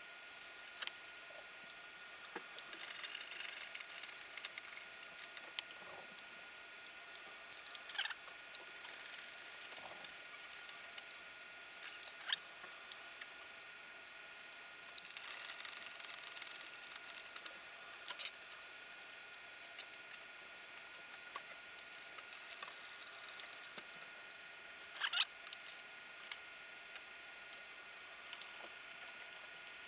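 A screwdriver turning M3 screws into nylon-insert lock nuts on a 3D printer's heatbed, with small metal parts handled: faint scratchy rasping in stretches and scattered sharp clicks.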